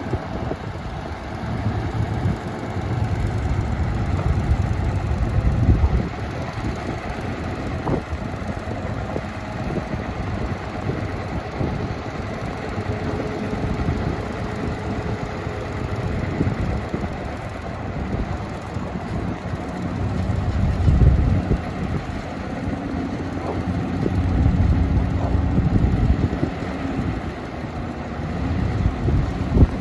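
Heavy diesel earthmoving machinery running with a steady low rumble, swelling louder a few times as the engines take load.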